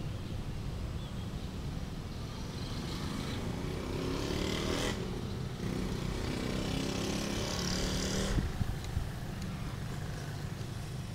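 A motor vehicle passing, its engine and tyre noise swelling from about two seconds in and dropping away after about eight seconds, over a steady low rumble of traffic.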